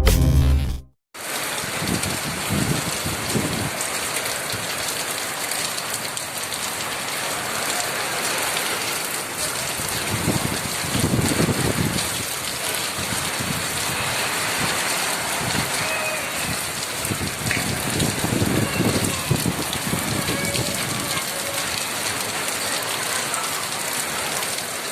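Heavy rain falling steadily, an even hiss that swells now and then, after a short music intro cuts off in the first second.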